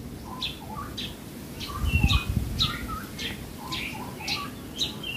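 Horsfield's bush lark (branjangan Javanica) singing: a running string of short chirps and whistled notes, about two a second. A brief low rumble about two seconds in.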